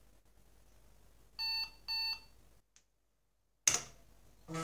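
Two short, buzzy beeps from the IBM PC Convertible's built-in speaker, about half a second apart. After a second of dead silence comes a sharp click, and a further short tone near the end.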